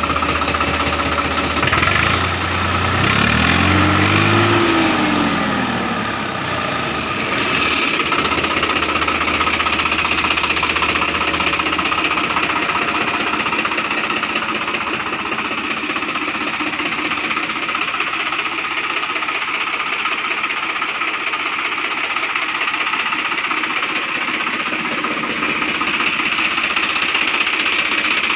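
Swaraj 855 FE tractor's three-cylinder diesel engine running. It revs up once a few seconds in, falls back, and then settles into a steady idle.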